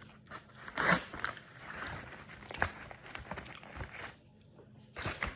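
A person chewing popcorn close to the microphone: irregular crunches, the loudest about a second in.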